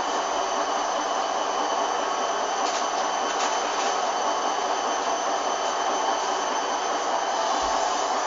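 Hoover Dynamic washing machine running on a synthetics 30 °C programme, its motor giving a steady high whine over an even rushing noise.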